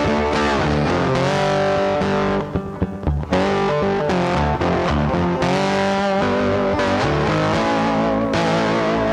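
Guitar-led instrumental music with a bass line and some distorted electric guitar, briefly dropping away about two and a half seconds in before coming back.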